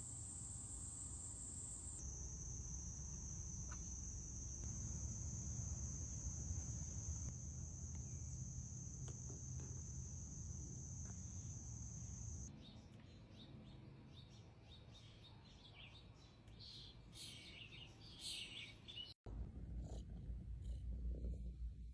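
Domestic cat purring close to the microphone, a low rumbling purr, with a thin steady high whine behind it for about the first twelve seconds. Then it drops quieter, with faint high chirps, and a low rumble returns near the end.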